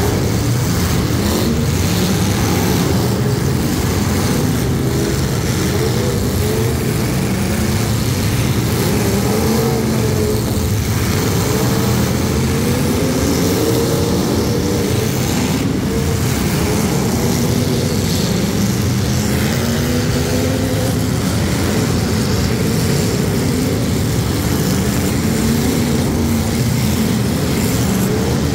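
Several demolition derby cars' engines revving together at once, their pitches rising and falling. A sharp knock comes about sixteen seconds in.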